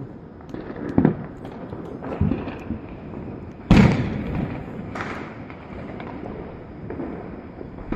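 Firecrackers bang about five times, each with a smeared, echoing tail, the loudest about four seconds in, over a steady background din.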